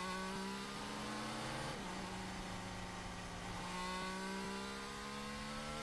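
Formula 1 car's turbocharged V6 hybrid engine heard faintly through the team-radio microphone, its note rising slowly in pitch twice as the car gently accelerates.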